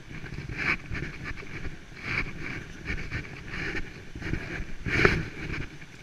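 Footsteps and clothing rubbing against a chest-mounted GoPro as the wearer walks down stairs and out along a path. The scuffs come irregularly, about one a second, and the loudest is about five seconds in.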